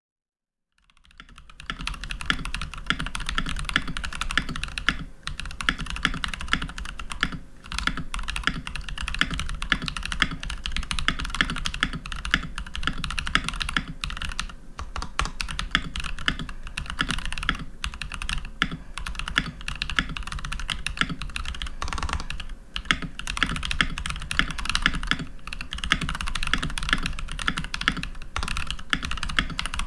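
Fast, continuous typing on a Keychron V1 mechanical keyboard fitted with stock Jwick T1 tactile switches and TX stabilizers, plate foam and silicone damping. The typing starts about a second in and runs in quick bursts with a few short pauses.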